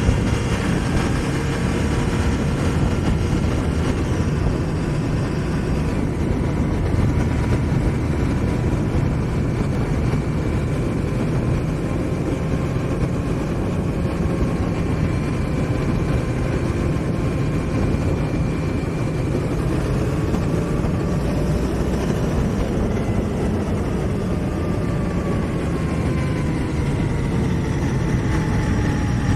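2018 Honda Africa Twin Adventure Sports' 998 cc parallel-twin engine running steadily under way, its note drifting gently with road speed and easing down over the last several seconds, under a steady rush of wind noise on the microphone.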